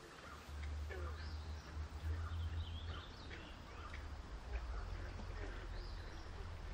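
Birds chirping and calling in short, scattered notes over a low, steady rumble.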